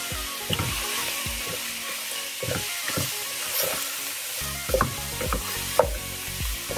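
Beef cubes sizzling in hot ghee as a spatula stirs them, with a steady hiss and a string of scrapes and knocks against the pan. The meat is raw and starting to sear.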